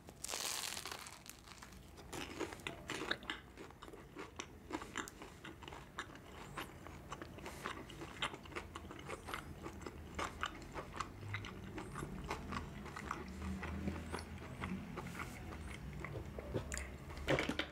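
Close-miked eating: a bite into a soft bread roll with chicken sausage and mayonnaise in the first second, then chewing with crunching and many small wet mouth clicks.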